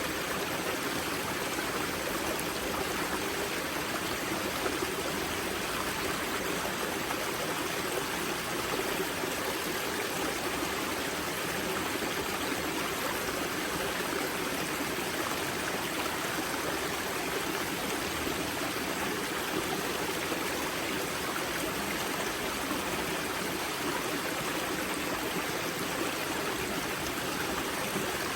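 Water of the Grza river's spring source rushing and splashing steadily, a continuous even rush of flowing water.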